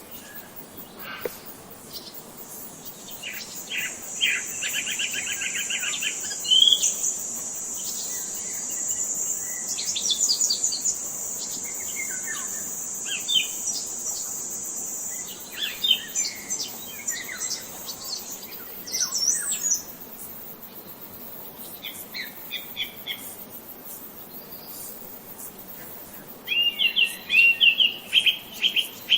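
Songbirds chirping and trilling, with short rapid call series throughout and a busier burst near the end. For about the first half a steady high-pitched insect buzz runs under the birdsong.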